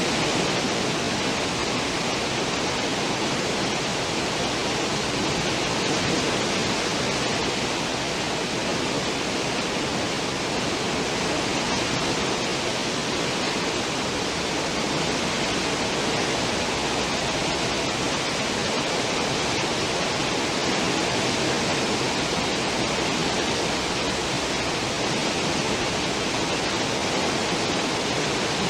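A cruise ship's stern wake: a steady rush of churning water, with no breaks or changes.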